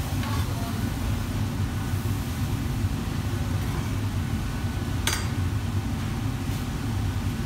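Steady low roar of a commercial kitchen's gas wok burners and extraction running, with a sharp metal clink about five seconds in.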